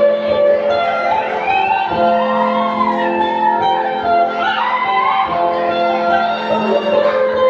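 Dance music playing at a steady level: a held low drone under several sustained notes, with a wavering melody that slides up and down.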